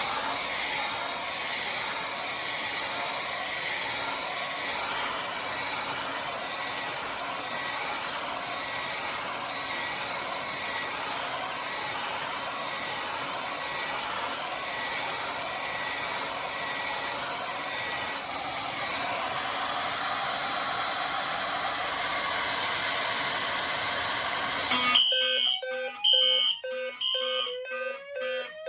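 A hair dryer blowing steadily on a heat detector to trip it. About 25 seconds in the dryer cuts off and the fire alarm goes off: horn tones pulsing on and off, one low and one high, with a rising slow-whoop tone sweeping over them.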